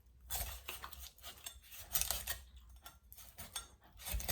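Knife work on a raw chicken during deboning: scattered light clicks and scrapes of the knife and handling of the meat.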